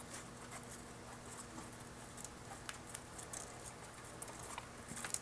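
Faint, scattered light clicks and scratches as the Seiko 6602's mainspring is fed out of its barrel by hand, one coil at a time.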